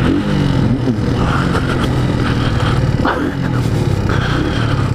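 Motorcycle engine running steadily at low revs as the bike pulls up.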